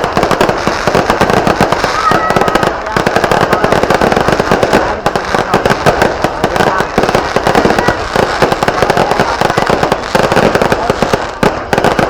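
Fireworks and firecrackers going off in a dense, continuous crackle of rapid bangs.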